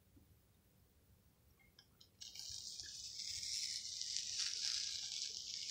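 An adhesive Chalk Couture silkscreen transfer, wet with chalk paste, being peeled off a magnetic chalkboard. A steady peeling hiss starts about two seconds in and carries on for a few seconds.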